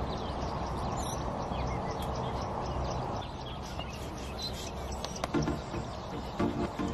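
Small birds chirping and twittering outdoors, in many short calls scattered over a steady background hiss.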